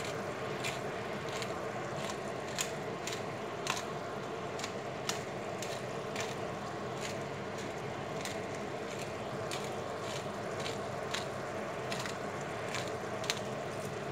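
Chicken sizzling steadily in margarine in a frying pan, while a hand pepper mill grinds black pepper over it with scattered crunching clicks.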